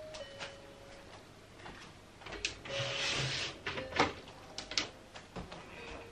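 Cloth rustling with scattered clicks and knocks from handling a baby's sleeping bag and moving about a small room, with a short hiss about three seconds in.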